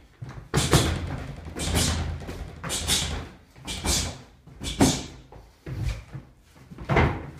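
Thuds and sharp movement noises from a person doing a jab-cross punching and plank drill on the floor. They come in a rhythm of about one hit a second, seven in all.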